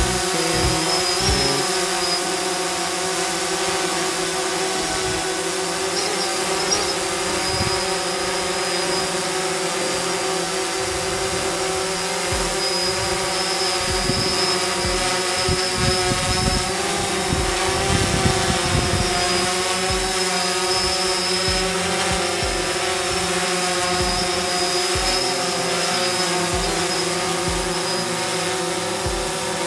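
DJI Phantom 3 4K quadcopter hovering close by, its four propellers giving a steady buzzing hum with a thin high whine over it. Occasional low thumps come and go underneath.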